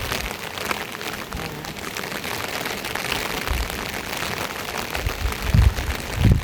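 Steady rain falling, a dense even patter of drops, with a few low thumps near the end.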